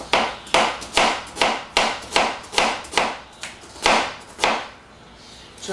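Kitchen knife slicing through an onion and striking a cutting board, a steady rhythm of about two to three cuts a second, stopping about four and a half seconds in.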